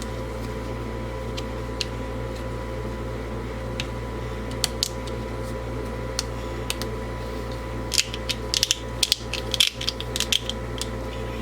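Scattered light clicks and rattles of trimmer parts being handled as a sleeve is fitted back over the throttle cable, coming thick and fast near the end, over a steady room hum.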